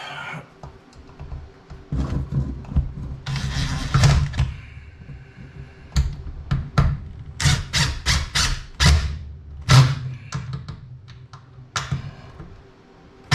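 A series of knocks and clunks from wood and tools being handled while a desk piece is screwed to a thin trailer wall. There is a short noisy stretch about three to four seconds in, then a quick run of sharp knocks between about six and ten seconds in.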